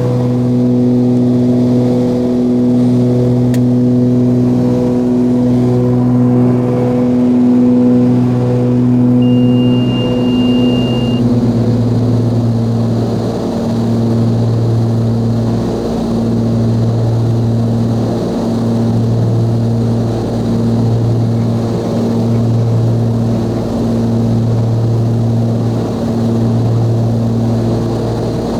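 The Cessna 340A's twin turbocharged Continental TSIO-520 piston engines and propellers running steadily, with a slow regular throb as the two engines beat against each other. A short high beep sounds about nine seconds in, and the engine note drops slightly in pitch about ten seconds in.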